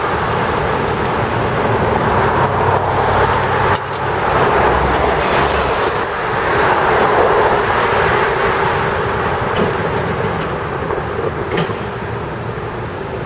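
Steady city street traffic noise: a dense hiss of passing cars and other vehicles, with a couple of short clicks.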